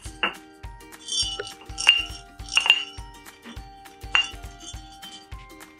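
Background music with held notes, over a run of sharp clinks and knocks from a rolling pin working candy dough on a sugar-dusted board. The two loudest knocks come about two and three seconds in.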